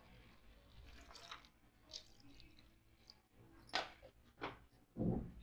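Water poured into a thick mushroom-and-pea curry in a steel kadai, with a few light clicks of the ladle against the pan and a low thump near the end.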